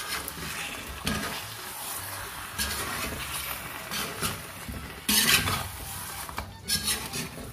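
A spatula stirring and scraping chicken pieces and chopped tomatoes around a cast iron kadai, over a steady sizzle of frying oil. The scrapes come every second or so, the loudest about five seconds in.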